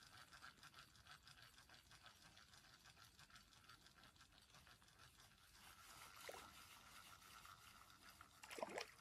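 Faint, rapid, even ticking of a fishing reel being cranked as a hooked brook trout is reeled in. Two short falling squeaks come over it, one about two-thirds of the way through and a louder one near the end.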